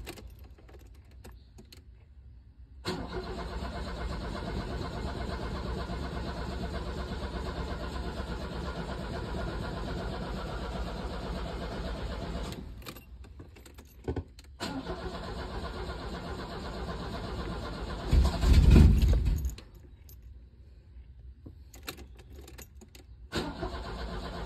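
Starter cranking the carbureted engine of an old VW Voyage, which turns over without catching because it is short of fuel after sitting for several days. There is one long crank of about ten seconds, a second shorter crank that ends in a much louder burst lasting about a second and a half, a pause with a few clicks, and cranking again near the end.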